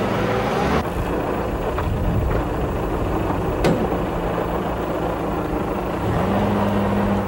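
M151 military jeep's four-cylinder engine running steadily, its note stepping up in pitch about six seconds in. There is a single short click near the middle.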